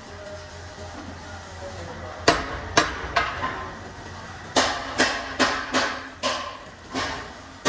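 Hammer blows on sheet steel: three sharp metallic strikes, then a quicker run of strikes at about two to three a second in the second half, each ringing briefly.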